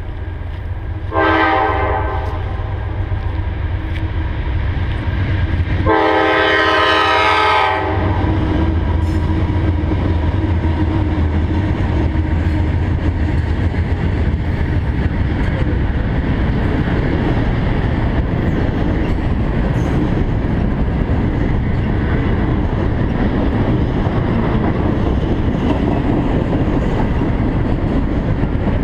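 CSX freight locomotive horn sounding twice, a short blast about a second in and a longer one around six seconds in, over the steady rumble of the locomotives and a long intermodal freight train rolling past, wheels clacking on the rails.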